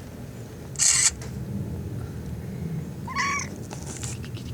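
A short, loud hiss of noise about a second in, then one brief high mew from a newborn kitten about three seconds in.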